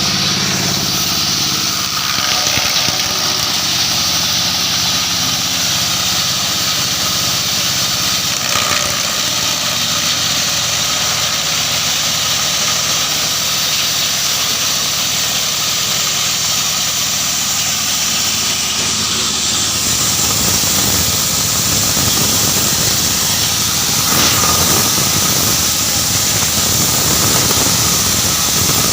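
Wood-waste crusher machine running continuously, a steady motor hum under a loud hiss. From about twenty seconds in, the low end turns rougher and more uneven.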